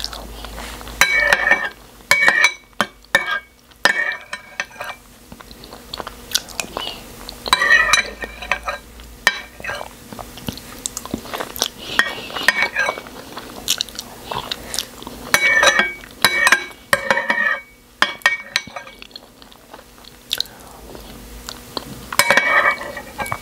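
Metal spoon clinking and scraping in a bowl of pap (akamu, fermented corn porridge) in short bursts every few seconds, between close-up chewing and eating sounds.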